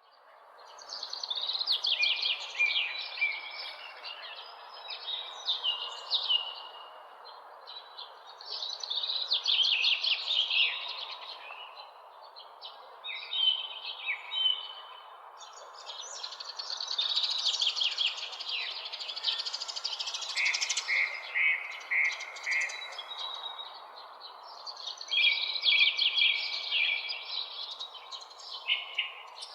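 Birds chirping and singing in quick, high bursts that come and go every few seconds, over a steady background hiss.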